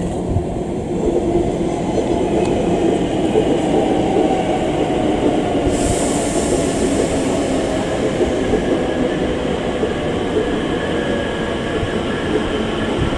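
Class 321 electric multiple unit running in along the track, a steady rumble of wheels on rails with a faint whine above it. A hiss comes in about six seconds in.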